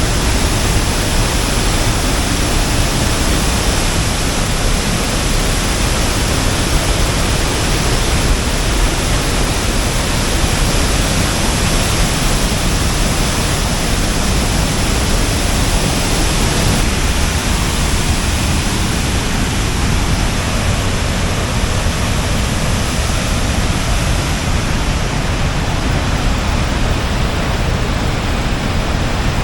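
Water released from a dam falling as a heavy waterfall: a loud, steady rushing noise with no break.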